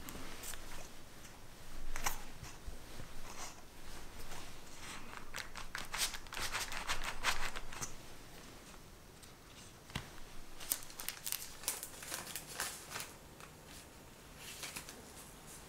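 Fluted round plastic cutter pressed into a sheet of raw pie dough, with dense crackly, scratchy ticks as it cuts. After a short pause there are more crinkling, crackling noises as the cut dough and the paper under it are handled.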